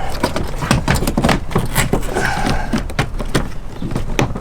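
Irregular clicks, knocks and scraping of metal and plastic parts as a third-row seat belt assembly is worked loose and pulled free.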